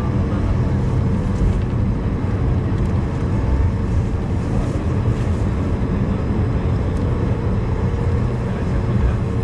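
Cabin noise of an Airbus A220-300 on its landing rollout, spoilers up: a loud, steady low rumble from its Pratt & Whitney geared turbofan engines and the airflow, heard from inside the cabin.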